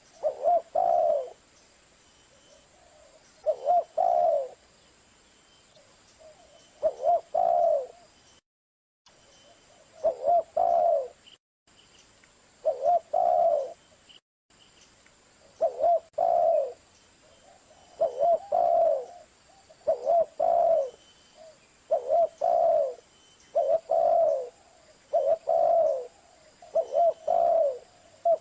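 Spotted dove cooing: a series of short phrases of a few low notes, one phrase every two to three seconds. The sound cuts to dead silence for a moment a few times between phrases.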